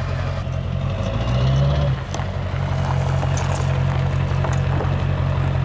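Pickup truck engine idling with a steady low rumble, its note rising briefly about a second and a half in, then settling back to a steady idle.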